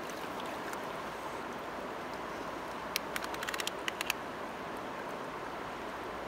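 Shallow stream water flowing steadily over rocks. About three seconds in, a quick run of a dozen or so sharp little clicks.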